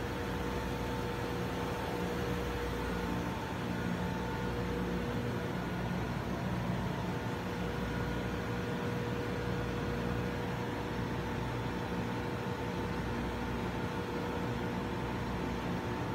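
Steady machinery hum of a ship's engine room, with a few steady whining tones over a low drone and no change throughout.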